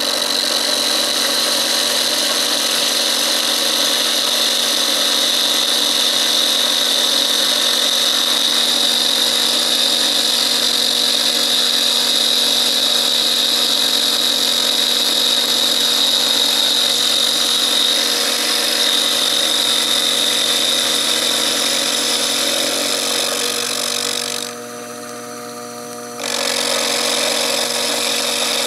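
Sherline benchtop milling machine running with a steady high whine as its cutter faces a plain steel plate. Near the end the sound drops for about two seconds, then picks up again.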